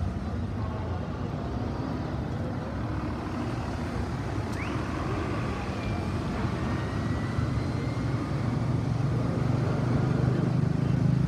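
Steady traffic on a busy city avenue: cars and other vehicles passing. The engine and tyre rumble grows louder in the last few seconds as a vehicle goes by close.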